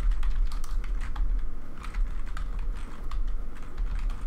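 Typing on a computer keyboard: an irregular run of key clicks over a steady low hum.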